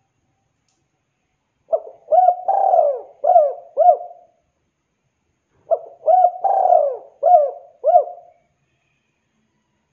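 Spotted dove (tekukur) cooing: two phrases about four seconds apart, each a quick run of five or six low, rounded coos with one longer drawn-out note in the middle.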